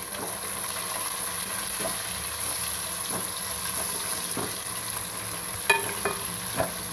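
Chopped onions sizzling in hot oil in a deep black pot while a spatula stirs them, with a few light scrapes of the spatula against the pot.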